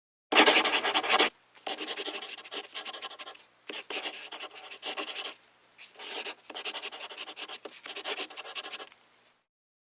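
Scratching sound effect: a loud scratch about a second long, then a run of fast, uneven scratchy strokes for about seven seconds.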